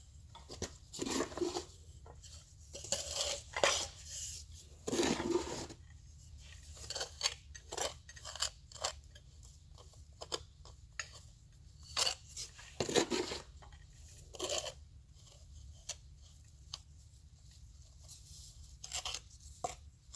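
Intermittent scraping and clinking of tiling tools on tile and thinset mortar, with irregular short taps and scrapes.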